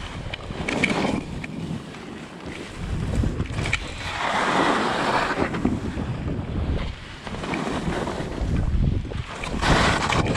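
Strong gusty wind buffeting the microphone, a low rumbling rush that rises and falls with the gusts; the strongest gust comes about four to five seconds in, and another builds near the end.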